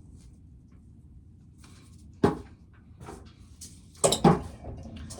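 A few sharp knocks and clatters of hard objects over a low steady rumble: the loudest about two seconds in, then two close together near the end.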